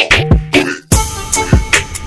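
Background music with a beat and drum hits. It drops out briefly just before the middle, then comes back in.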